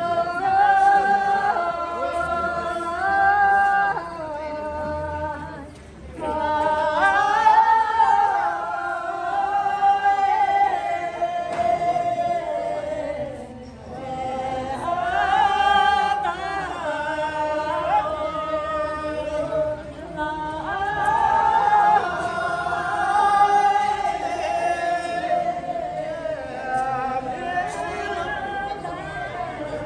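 A group singing a Kyidrong folk dance song together, in long melodic phrases with short breaks about six and fourteen seconds in.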